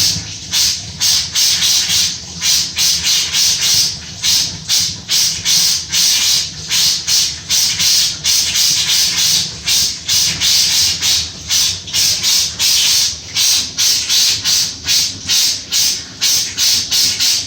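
Bathtub drain gurgling and slurping as the water runs down it, in uneven pulses about two to three times a second. The drain has just been fixed and is draining freely.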